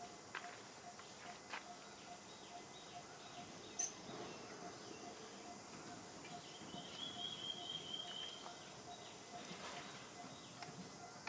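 Faint outdoor ambience with a steady run of soft pips about three a second, a single sharp click about four seconds in, and a high bird trill lasting about two seconds a little past the middle.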